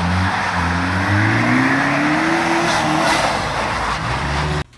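A car engine pulling hard under a loud rushing noise, its pitch climbing in stretches and dropping back several times, as when a car accelerates through its gears. It cuts off suddenly near the end.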